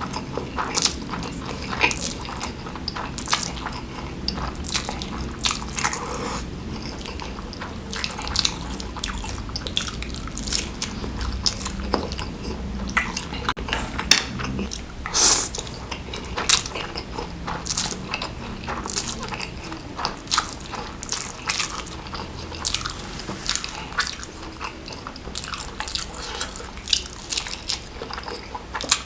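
Close-miked eating: wet chewing and biting of food, with many irregular smacking clicks.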